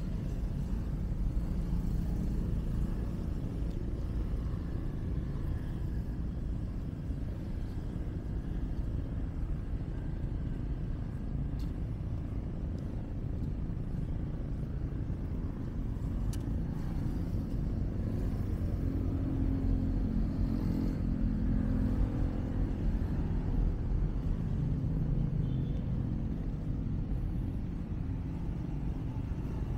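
Road traffic passing: a steady low rumble of cars, with one vehicle passing closer and louder about twenty seconds in.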